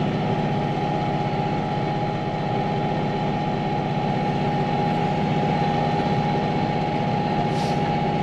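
Tractor engine running steadily while plowing snow, with a steady high-pitched whine over the engine note.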